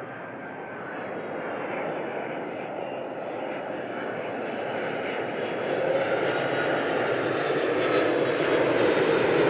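Boeing 767 freighter's twin jet engines on landing approach: a steady rushing rumble with a faint whine that grows steadily louder as the plane comes nearer.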